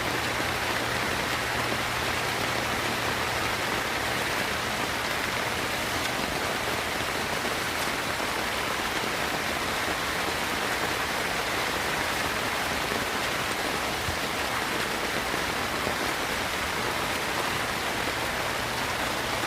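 Heavy rain falling steadily, an even hiss of rain that does not let up.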